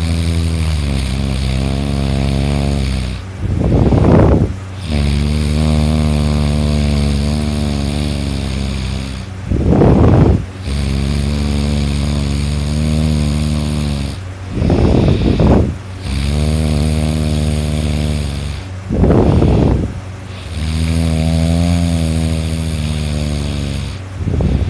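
A person snoring very loudly in deep sleep: long, low, rattling snores of three to four seconds, each broken by a short harsh snort, in a steady breathing rhythm about every five seconds.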